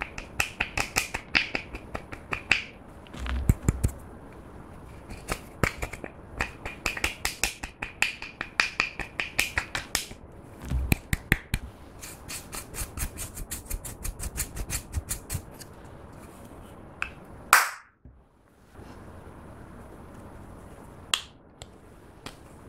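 Pressed powder eyeshadow being scraped and crumbled in a plastic compact, making many quick, scratchy clicks in runs. There is one loud brief swish about three-quarters through and a single click near the end.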